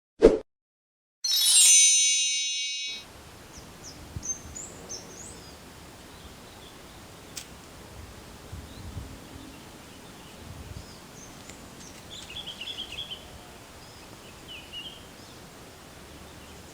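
A sharp click, then a bright chime that rings and fades over about two seconds. Then quiet outdoor ambience with a few faint, brief bird chirps.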